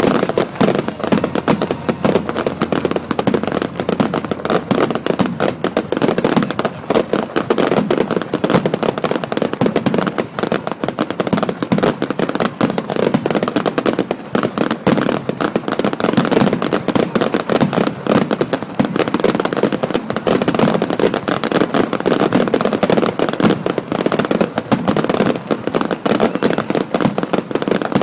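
Fireworks going off in a dense, continuous barrage of overlapping bangs and crackles.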